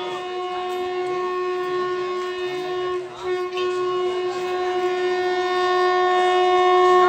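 WAP-5 electric locomotive's horn sounding two long, steady blasts, with a short break about three seconds in. The horn grows louder as the train approaches at speed.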